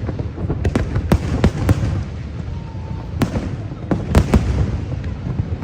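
Fireworks bursting: a string of sharp bangs at uneven intervals, bunched in the first two seconds and again around four seconds in, over a continuous low rumble.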